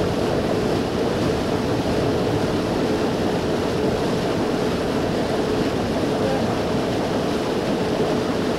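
Boat under way: a steady engine drone with one constant hum running through it, over the rush of water along the hull and wind on the microphone.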